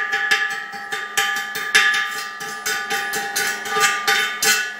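Chipping hammer knocking slag off a fresh stick weld on a steel pipe, in quick irregular strikes about three or four a second, the steel ringing after each hit.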